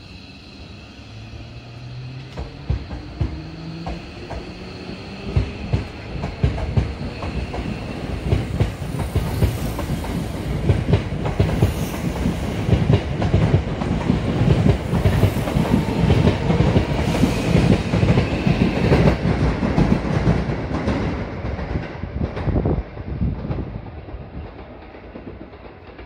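Hankyu 8000-series electric train pulling out of the station. Its motors give a rising whine as it starts, then its wheels clack over the rail joints, faster and louder as the cars pass, before fading near the end.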